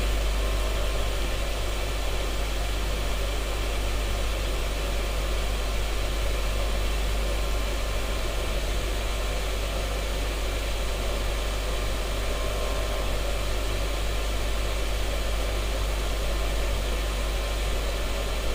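Steady background hiss over a constant low hum, with no distinct events.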